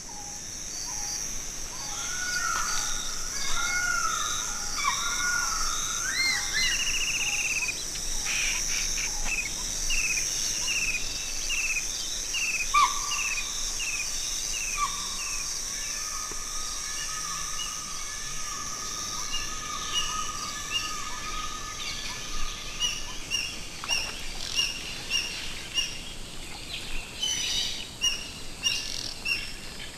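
Forest ambience: several birds calling and singing over a steady high hiss. Near the end comes a run of short, high chirps, about two a second.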